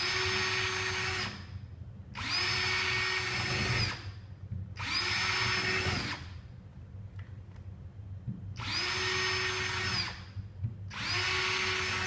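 Cordless drill drilling small holes through drywall in five short runs of one to two seconds, the motor spinning up at the start of each run and winding down at the end.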